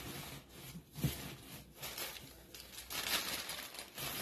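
Wrapping paper rustling and crinkling as it is handled over a cardboard box, with a knock about a second in.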